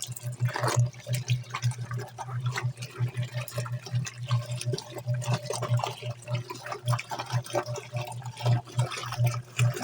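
Suggar Lava Max Eco 10 kg semi-automatic washing machine churning a load of bedding and towels in its pre-wash: water sloshing and splashing over a low motor hum that pulses over and over.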